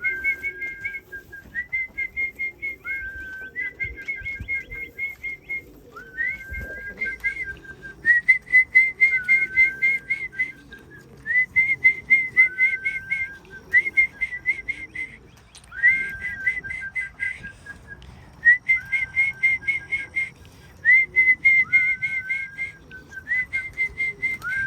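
Trilled whistle calls repeated about a dozen times, each phrase a quick run of rapid pulsed notes with a short rising glide: the whistle used to call racing pigeons into the loft.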